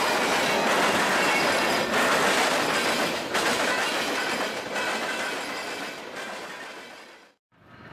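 Freight cars (open hoppers, then tank cars) rolling past close by: a steady rumble with repeated wheel clatter over rail joints. The sound fades near the end and cuts off suddenly.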